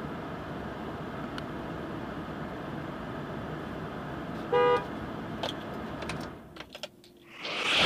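The 2009 Chevrolet Silverado's 6.2-litre V8 idles as a steady hum inside the cab. About four and a half seconds in there is a short horn-like beep. Just past six seconds the engine hum drops away as the engine is switched off, leaving a few clicks and a rising rush of noise at the very end.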